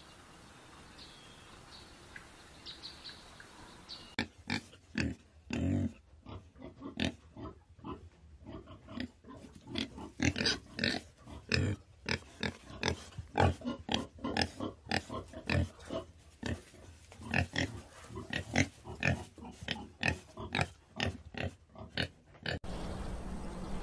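Wild boar grunting and snorting, a rapid, irregular run of short grunts that starts suddenly about four seconds in and cuts off abruptly near the end. Before the grunting there are only faint high bird chirps.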